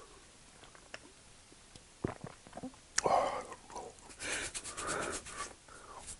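A person drinking from a canned drink: small gulping clicks, a sharp click about three seconds in, then a long breathy exhale.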